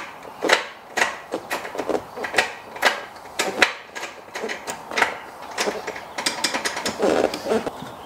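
Mazda MX-5's stock gear lever, bare of its knob and boot, being moved through the gears: sharp clicks and clunks, about two a second, as it snaps in and out of each gate. Near the end comes a quicker run of small clicks.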